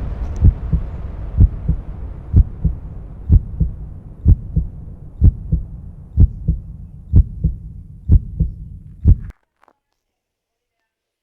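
Heartbeat: low double thumps about once a second over a hiss that fades away, cutting off suddenly about nine seconds in.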